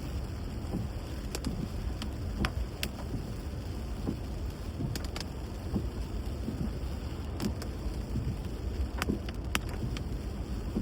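Steady low rumble of a vehicle travelling through rain, with scattered sharp ticks of raindrops striking at irregular moments.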